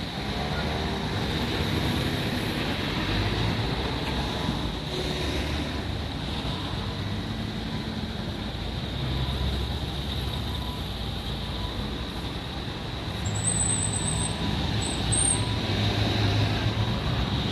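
Continuous traffic noise at a busy road–rail level crossing, a steady rumble of passing vehicles that grows a little louder about thirteen seconds in. A brief high, wavering squeal sounds about thirteen to fifteen seconds in.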